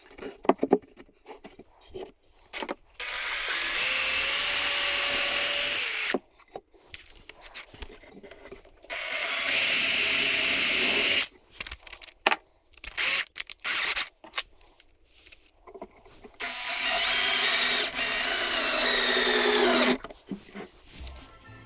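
Power drill driving screws into pallet wood in three runs of about three seconds each, its pitch shifting near the end of the last run. Short knocks and clicks of handling wood come between the runs.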